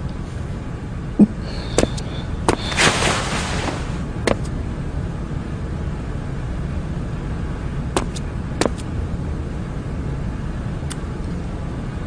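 A steady low background hum with a handful of faint short clicks spread through it and one brief breath-like hiss about three seconds in.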